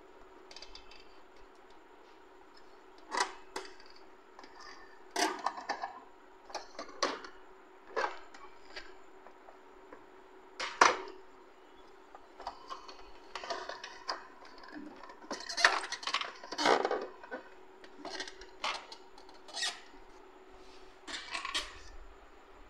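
Irregular plastic knocks and clicks of an Epson L3115 printer's housing and scanner unit being handled and fitted back into place, the loudest knock about halfway through.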